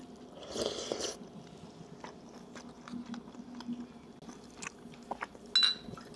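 Close-up chewing and biting of chewy beef skin lining (sugure) and rice soup, with many small wet mouth clicks. One sharp clink rings out near the end.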